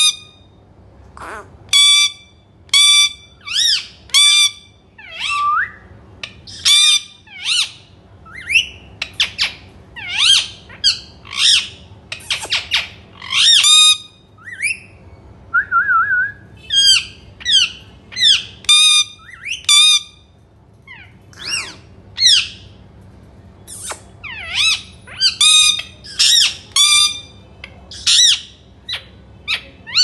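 Rose-ringed parakeet (Indian ringneck) calls: a steady run of short, shrill squawks, about one to two a second, with a brief pause and one short lower note just before halfway.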